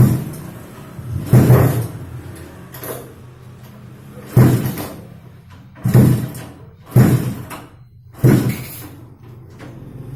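Motorcycle engine, upgraded to 200cc, idling and being revved in short throttle blips about every second and a half. Each blip rises suddenly and falls back to idle within about half a second.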